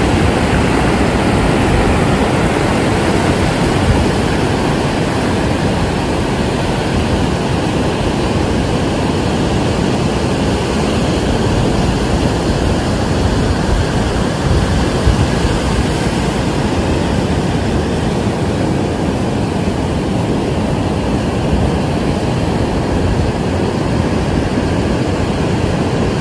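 Ocean surf breaking and washing up a sandy beach: a loud, steady rush with a deep rumble under it.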